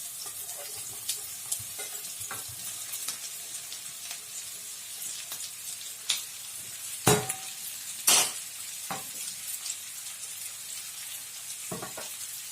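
Chopped cabbage frying in a pan with softened onion and garlic: a steady high sizzle with scattered small clicks of stirring, and two louder knocks against the pan a little past halfway.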